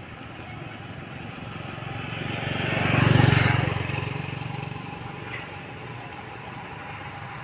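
A motor vehicle driving past, growing louder to a peak about three seconds in and then fading away.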